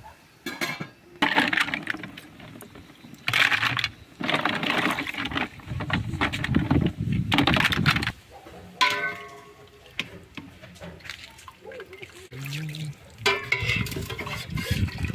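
Tap water running into a kitchen sink in several stretches with short pauses between, with a short ringing clink about nine seconds in.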